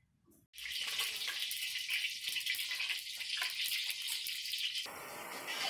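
Hot desi ghee sizzling and bubbling in a kadai, a dense crackling hiss that starts suddenly about half a second in.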